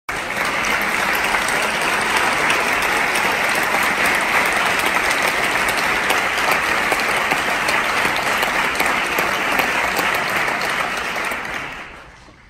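Audience applauding steadily, the clapping dying away in the last second.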